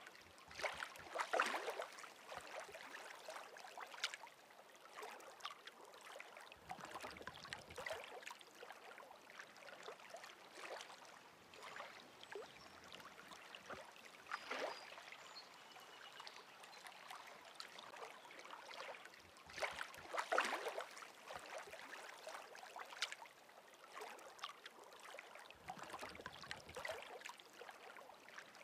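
Faint river water lapping and splashing, a soft rushing noise that swells irregularly every few seconds.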